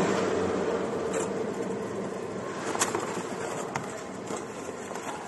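Machine noise slowly fading after a motor's whine cuts off at the start, with a few light clicks, typical of a CNC cutting machine's motor or blower running down.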